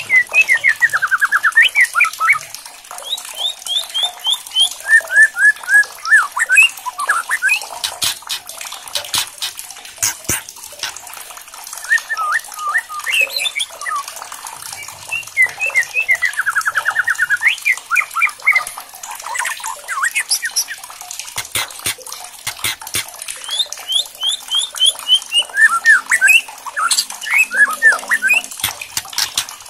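White-rumped shama singing loud, fast series of rapid repeated notes and trills, the harsh chattering 'kretekan' used to provoke other shamas. Sharp clicks run through it over a steady hiss.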